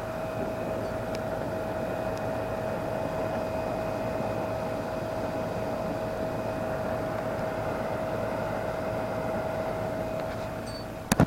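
Steady rushing noise with a steady, even-pitched hum running through it, machine-like and unchanging. It is ended by a sharp click near the end.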